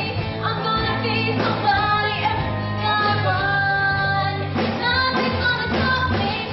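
Pop song: a woman sings long held notes over a steady bass and backing band.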